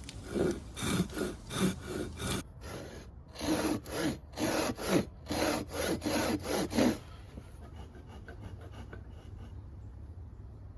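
Hand saw cutting into wood in quick back-and-forth strokes, about three a second, with a brief pause a little over two seconds in. The sawing stops about seven seconds in. It is cutting away the waste at the shoulder of a mortise-and-tenon joint.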